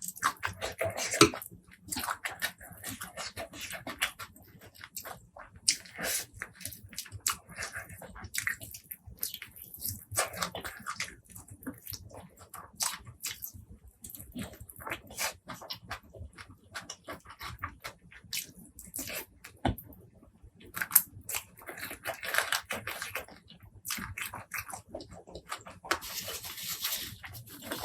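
Close-miked eating: wet chewing and lip-smacking with irregular sharp mouth clicks, in bursts.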